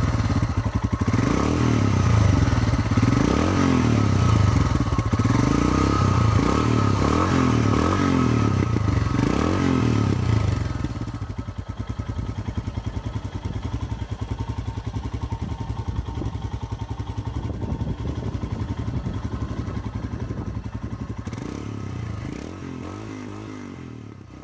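Motorcycle engine running, its note rising and falling as it is revved, then dropping about halfway through to a quieter, steadier run before fading out at the end.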